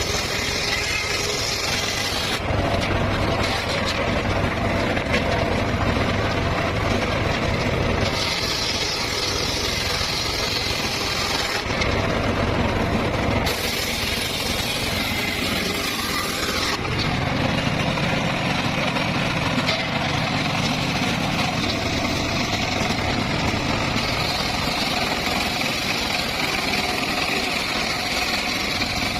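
Circular saw running and cutting teak and mahogany wood, a continuous loud machine sound. The higher cutting hiss comes and goes every few seconds over a steady low hum.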